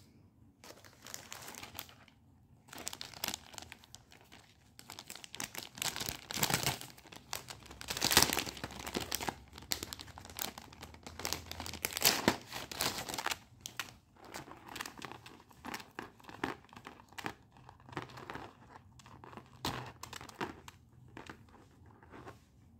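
Packaging crinkling and tearing as it is handled and opened, in irregular rustling bursts with sharper crackles, loudest about a third of the way in and again just past the middle.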